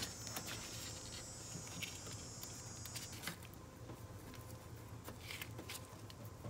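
Faint scraping, rubbing and small clicks as a quick-connect disconnect tool is worked onto a heater-valve coolant hose fitting by gloved hands, with one sharper click right at the start.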